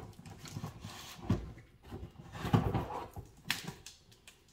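Sprayer parts and cardboard packaging being handled while unpacking a box: irregular rustling, scraping and light knocks, with a sharp click about three and a half seconds in.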